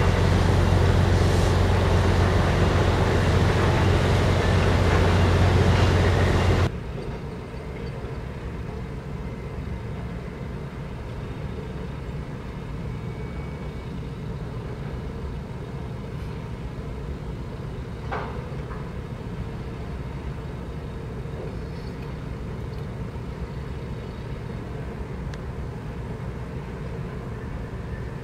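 Steady low mechanical rumble of harbour machinery and engines, with a strong low hum. It is loud for the first seven seconds, then drops abruptly to a quieter steady rumble.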